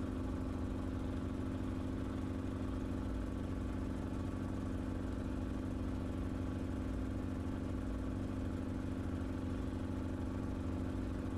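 Enstrom helicopter in steady cruise flight, its engine and rotor heard from the cockpit as an even, unchanging drone with several steady tones.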